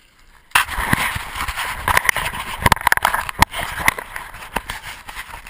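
Handling noise from a handheld GoPro in its case: a dense run of irregular knocks, scrapes and rubbing that starts suddenly about half a second in, as the person holding it scrambles over a mud mound.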